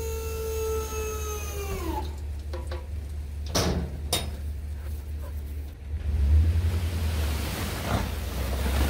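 Electric hydraulic pump of a dump trailer running with a steady whine as it raises the bed, then winding down in pitch and stopping about two seconds in. Two sharp knocks follow a moment later, then wind rumbling on the microphone.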